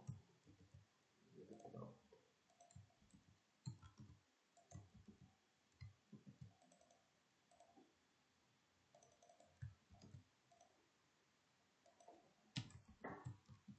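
Faint, irregular clicks of a computer mouse and keyboard, with soft low thumps between them.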